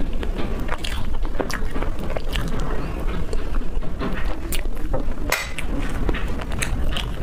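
Close-miked chewing of a mouthful of soft chocolate cake: a steady run of wet, sticky mouth clicks and smacks.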